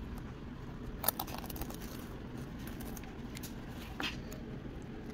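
Masking tape being peeled off a sneaker's upper and midsole: faint rustling with a light tick about a second in and another near four seconds.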